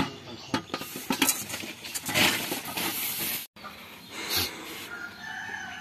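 Metallic clinks and scraping as a stainless-steel submersible pump is handled at the tube-well flange, with a patch of hiss. The sound cuts off abruptly a little past halfway.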